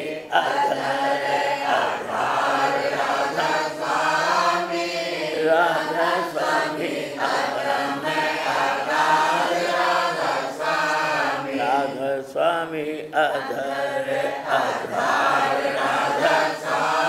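Devotional chanting of a Radhasoami shabad by several voices singing together, a steady unbroken chant.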